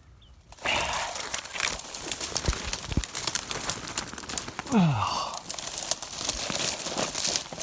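Dry leaf litter and brittle brush stems crackling and crunching as a person crawls and pushes through a dense briar thicket, starting about half a second in. A short falling breath from the person comes about five seconds in.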